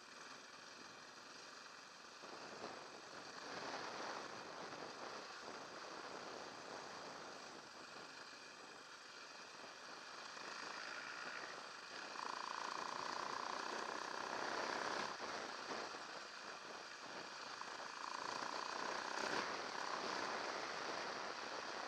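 Motorcycle running along a dirt trail, its engine heard with tyre and wind noise. A steadier, higher engine whine comes in about halfway through and again near the end.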